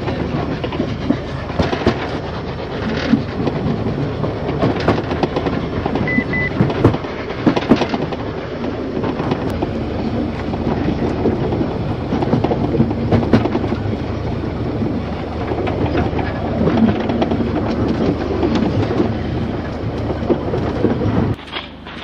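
Narrow-gauge train running along snowy track, its wheels clattering with irregular clicks over the rails; the sound cuts off suddenly near the end.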